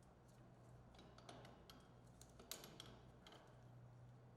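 Near silence with a faint low hum and a scatter of faint clicks and taps, as the snowmobile's upper control arm assembly is worked off its mounts.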